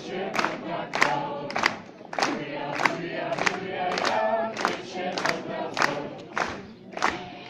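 Folk dance ensemble singing a folk song in chorus, men's and women's voices together, over sharp beats about three times a second.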